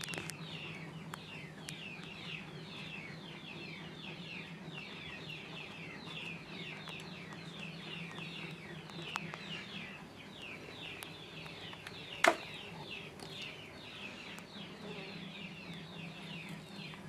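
Birds chirping continuously in many overlapping short, falling notes, over a steady low hum, with one sharp knock about twelve seconds in.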